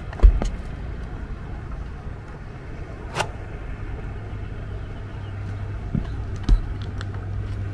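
Wind rumbling on the microphone, with a few knocks and two heavier thumps, one just after the start and one near the end.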